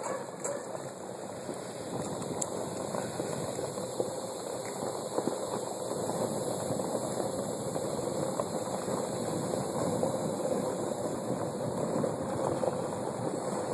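Steady crunching of footsteps and bicycle tyres on a gravel driveway, a dense crackle of small stones.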